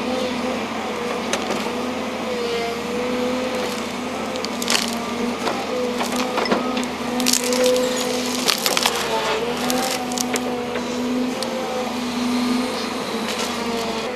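Volvo excavator's diesel engine running steadily under load while tree roots crack and splinter as they are torn out of the ground, the snaps coming thickest around the middle.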